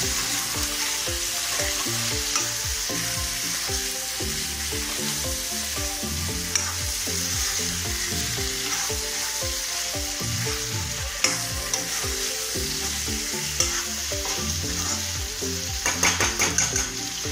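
Chicken and potato curry sizzling in oil in a metal kadai while a metal spatula stirs it, scraping and knocking against the pan now and then, with a quick run of sharper clinks near the end.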